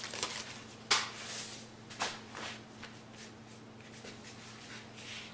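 A sheet of puff pastry being unrolled from its baking paper and pressed flat on a countertop by hand: a sharp tap about a second in, a softer one at two seconds, then faint paper rustling and soft pats.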